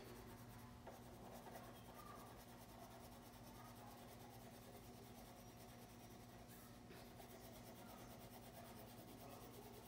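Faint scratching of a wax crayon colouring in on paper, over a steady low hum.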